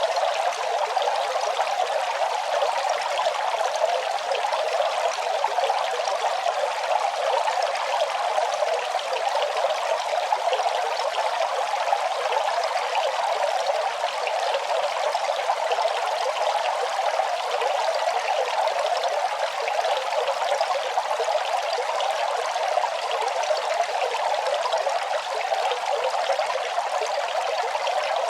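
Running water trickling and splashing steadily, a continuous even rush with no breaks or changes.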